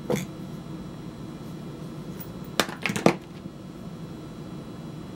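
A few short knocks and clicks of hand tools and leather being handled on a workbench: one near the start and a quick cluster about three seconds in, over a steady low hum.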